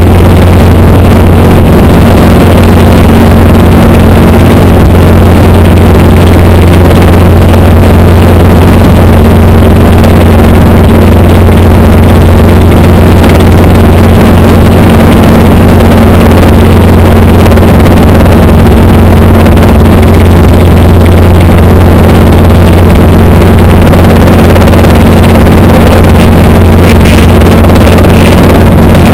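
Light helicopter in level flight, heard from inside the cockpit: its engine and rotor make a loud, constant drone with a strong low hum.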